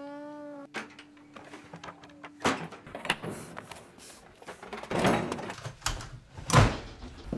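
A steady hum that cuts off about two and a half seconds in, then a string of separate slams and thuds, such as doors shut hard, the loudest near the end.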